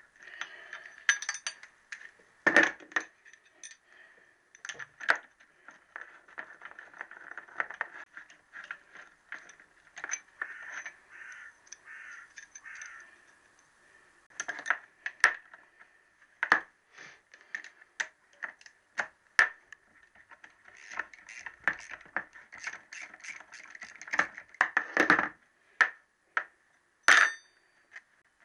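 Spanner and socket work on a Triumph T120R's alloy crankcase as the remaining case nuts and bolts are undone: irregular metallic clicks, clinks and taps, some in quick clusters. About a second before the end there is a short ringing metallic ping.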